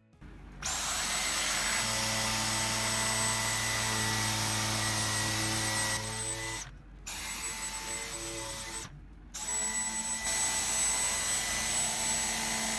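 Dyson V10 Fluffy cordless stick vacuum running while vacuuming a fabric sofa: steady rushing suction with a high motor whine, starting about half a second in. It cuts out twice for a moment and starts up again.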